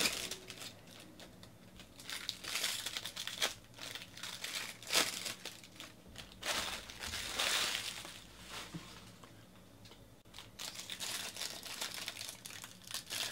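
Foil trading-card pack wrappers crinkling and tearing as baseball card packs are ripped open by hand, in irregular crackles with a few sharp rips and a quieter lull a little after the middle.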